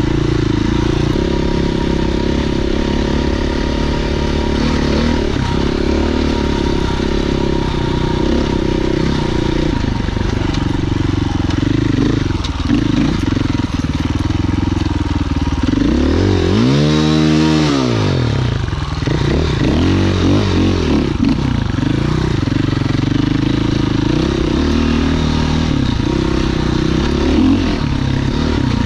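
Husqvarna FE 501's single-cylinder four-stroke engine on a trail ride, its pitch rising and falling as the throttle is worked, with one long rev up and back down a little past halfway.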